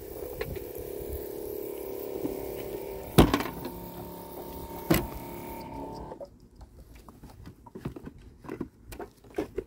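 Motor of a Kobalt 24V cordless tool humming steadily, with two sharp knocks about three and five seconds in; the hum stops about six seconds in, leaving scattered light taps and clicks.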